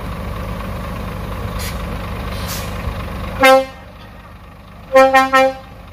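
A Scania heavy truck's diesel engine runs steadily, then drops off about three and a half seconds in as a truck horn gives one short toot. About a second and a half later the horn gives three quick toots.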